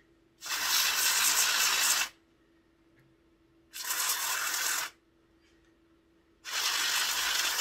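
Aerosol contact cleaner sprayed through its extension straw into a small model-locomotive motor in three hissing bursts: a long one of about a second and a half, a shorter one of about a second, and a third near the end, each starting and stopping sharply. The spray is flushing grime out of the motor.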